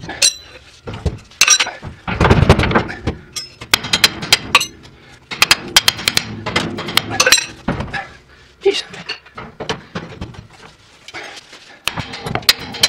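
Hand ratchet clicking in quick runs, mixed with metal clinks and knocks of the wrench and socket against the nuts, as the mounting nuts of a lever-type shock absorber are worked loose.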